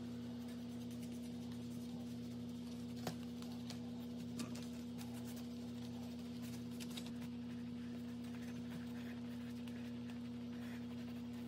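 A steady low hum with a few faint soft ticks and scrapes as a dull kitchen knife saws through a slab of soft slider rolls.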